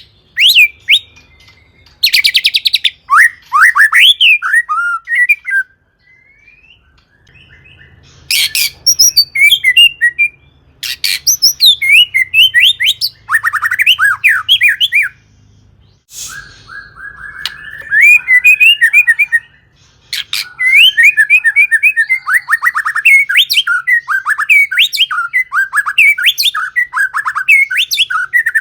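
White-rumped shama (murai batu) singing at full voice. It gives quick phrases of varied gliding whistles mixed with harsh rasping chatter, broken by short pauses.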